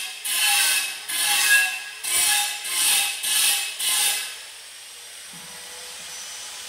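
Rhythmic back-and-forth scraping or rubbing strokes, about two a second, from a hand tool worked over a surface. They stop about four seconds in, leaving a steady faint hiss.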